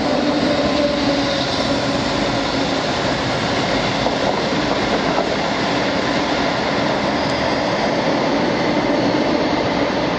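Class 57 diesel locomotive 57308 passing at close range, its engine note strongest in the first couple of seconds, then the steady rumble of wheels on rail as the Class 221 Voyager unit it is dragging rolls past.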